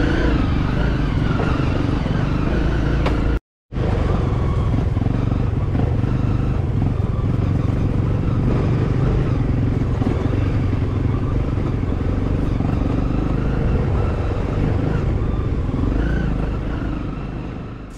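Dual-sport dirt bike engine running steadily as it rides along a dirt trail. The sound cuts out completely for a moment about three and a half seconds in, then fades away near the end.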